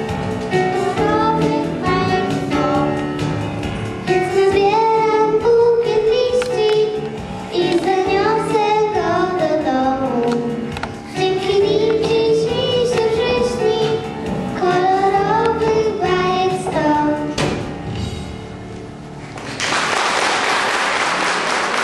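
Young children singing a song into microphones with music behind them. The song ends about 17 seconds in, and applause starts near the end.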